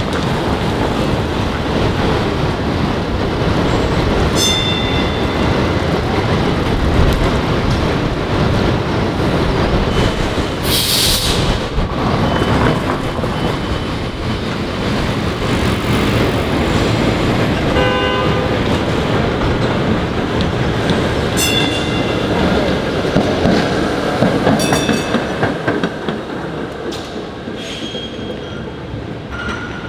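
PCC streetcar rolling along street-running rails amid city traffic: a steady rumble and road noise, broken by a few short high-pitched ringing tones and a brief hiss about eleven seconds in.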